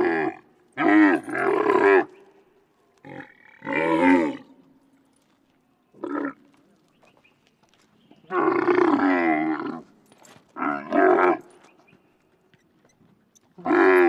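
Camel grunting: a string of about seven separate pitched grunts with quiet gaps between them. Some are short; the longest, a little past halfway, lasts nearly two seconds.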